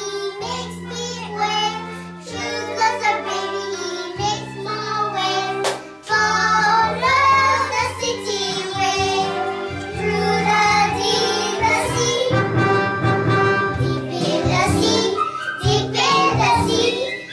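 A child singing a song over instrumental accompaniment with held bass notes that change every second or two.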